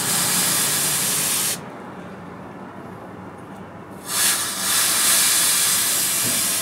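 Hot steel cleaver blade quenched in a water trough, hissing in two bursts: one in the first second and a half, and another starting about four seconds in.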